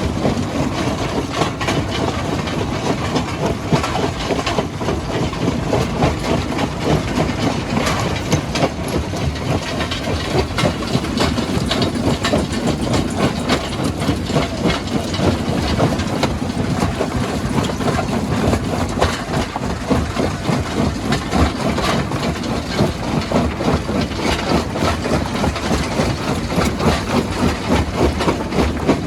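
Rock-crushing machinery running, with a dense, continuous rattle and rumble of stone being crushed.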